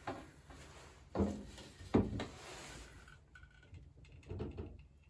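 Manual caulking gun being squeezed to lay a bead of adhesive on a wooden strip: a few clunks and clicks of the trigger and ratchet plunger rod. The loudest two come about a second and two seconds in, with a quicker cluster near the end.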